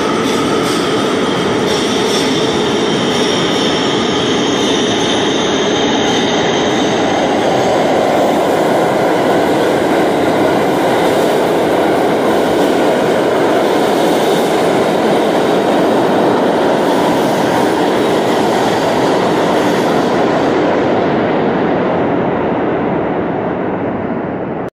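New York City subway train running through the station on the express track at speed: a loud, steady rumble and wheel clatter, with high squealing tones over it for the first several seconds. The sound fades away over the last few seconds.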